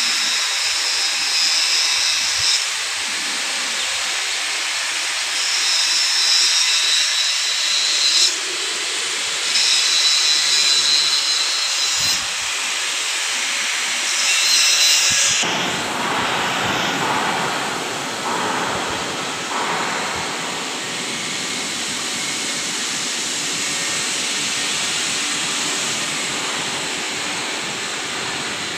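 Steady loud hissing noise, with a high thin whine that comes and goes in short spells during the first half. About halfway through it becomes fuller and rougher, reaching lower.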